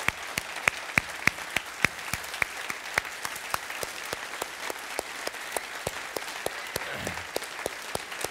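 Large audience applauding, a dense steady patter of clapping. A few louder claps at an even pace stand out in the first two seconds.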